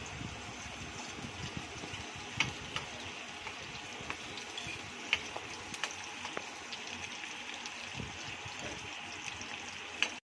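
Sliced onion sizzling in hot oil in an iron kadhai, a steady frying hiss, with a few sharp clicks of a steel spoon against the pan as it is stirred.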